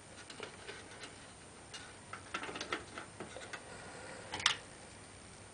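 Faint, irregular clicks and ticks of computer power-supply cables and connectors being handled and unplugged inside a PC case, with one sharper click about four and a half seconds in.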